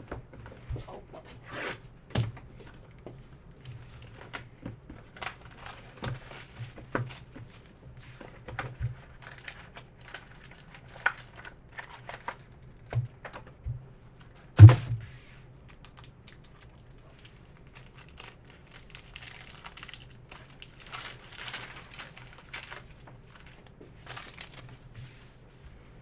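Plastic and foil card-pack wrappers being torn open and crinkled by hand, with irregular crackles and the clicks of cards and packaging being handled. About halfway through, one sharp knock is much louder than the rest.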